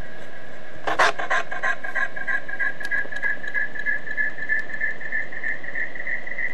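Electronic glitch sound: a steady high tone over hiss, broken about a second in by a sudden crackling burst, then a high tone pulsing about three times a second and slowly rising in pitch.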